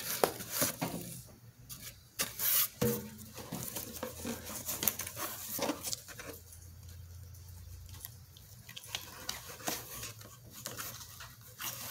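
Hands rummaging in a cardboard box: scattered rustles, taps and scrapes of the cardboard and its contents, coming in uneven bursts.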